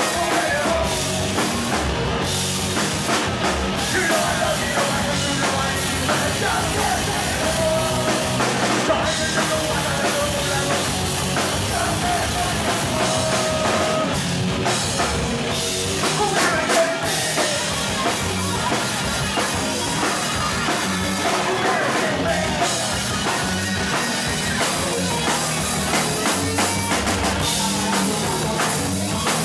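Live rock band playing: electric guitars and a drum kit driving a fast rock song, with a lead vocal singing over them.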